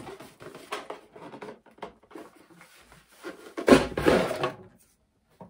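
Cardboard box being opened by hand: card flaps and packaging rubbing, scraping and clicking, with a louder rustling scrape about four seconds in as the white inner box is pulled out.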